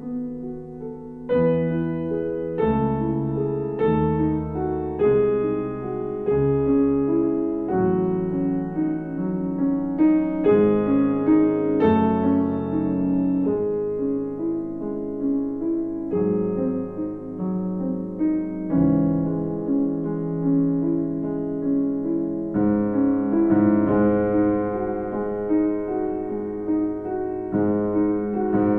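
Background solo piano music, slow chords struck every second or two.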